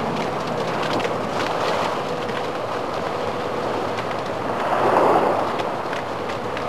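Water rushing and churning around a sinking U-boat mock-up, swelling about five seconds in, over a faint steady hum.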